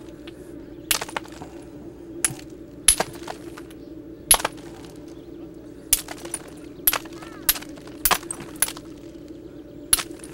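Flint knapping: the edge of a hand-held stone flake being chipped with a small tool, giving about a dozen sharp stone clicks at irregular intervals as tiny flakes snap off, which resharpens the dulled edge.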